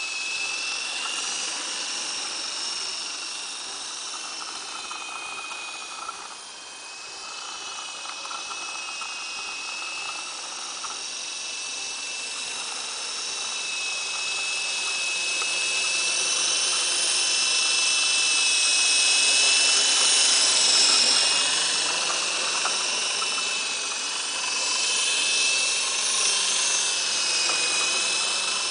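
Esky Big Lama RC helicopter in flight: its electric motors and coaxial rotors make a steady high whine that wavers slightly in pitch, over a rotor hiss. It swells louder about two-thirds of the way through, dips, and rises again near the end.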